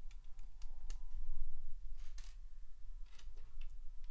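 LEGO plastic pieces being handled and pressed together: a few scattered light clicks, with a slightly longer rattle about two seconds in, over a steady low hum.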